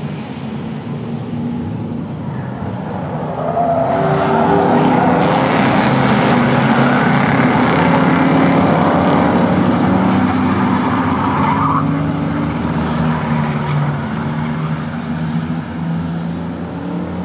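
Engines of a pack of old cars and pickup trucks racing on an oval track, several at once. They grow louder about four seconds in as the pack passes close, then fade as it pulls away.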